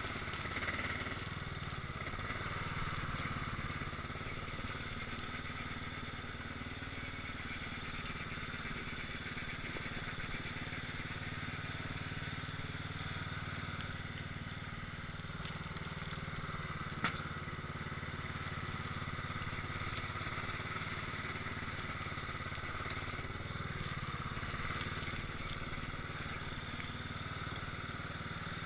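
Cub Cadet XT1 lawn tractor engine running steadily while the tractor pushes heavy snow with its front plow blade, with a single sharp click partway through.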